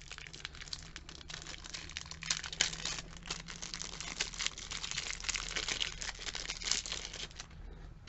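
Clear plastic wrapper crinkling as a lipstick is handled and unwrapped from its sleeve, a dense crackle that stops about a second before the end.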